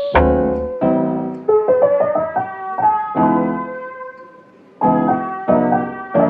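Background piano music: soft chords struck and left to ring out, with a short pause about four seconds in.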